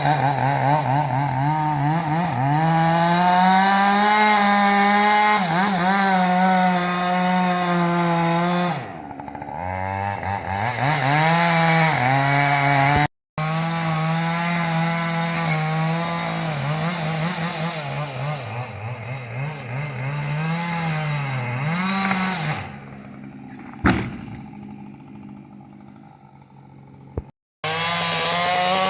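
Husqvarna two-stroke chainsaw running at high revs while cutting wood, its pitch sagging and recovering as the chain bites. It drops to lower revs twice, and there is one sharp knock near the end.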